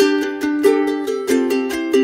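Background music: an upbeat plucked-string tune, repeated chords struck a few times a second with a steady beat.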